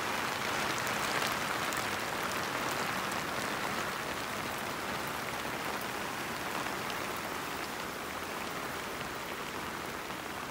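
Heavy rain pouring down, a dense steady hiss of drops on the ground and roofs, easing slightly toward the end.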